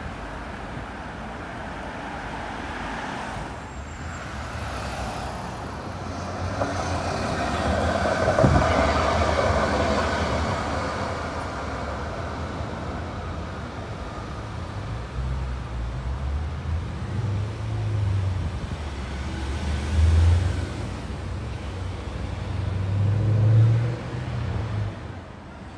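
Street traffic: cars passing close by, with one vehicle swelling to a peak and fading about eight seconds in. Low rumbling comes and goes through the second half.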